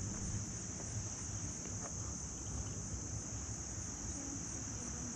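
Steady high-pitched insect chorus, a continuous trill of crickets, with a low uneven rumble of movement underneath.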